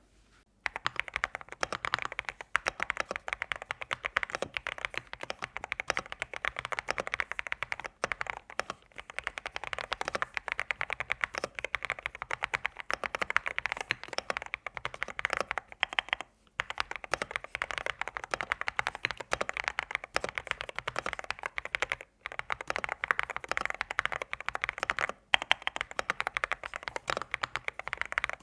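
Typing on an AKKO 5098B full-size mechanical keyboard: a fast, steady stream of keystroke clacks with a few short pauses.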